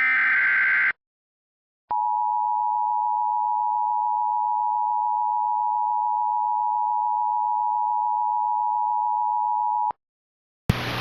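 The Emergency Alert System sounds a brief digital header burst, under a second long, then falls silent for about a second. The two-tone attention signal (853 and 960 Hz together) follows, held steady for about eight seconds and cutting off sharply. Near the end a hiss with a low hum starts.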